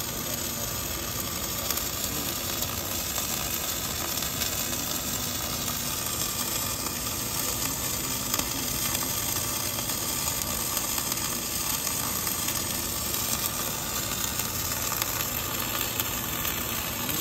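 Wire-fed arc welding by an automatic orbital pipe-welding carriage: the arc gives a steady crackling sizzle throughout.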